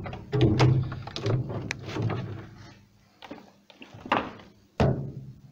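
Old wooden beehive frames being set into the basket of a steam wax melter pot: a series of irregular wooden knocks and thunks as the frames bump against each other and the pot, strongest about half a second in and again near the end.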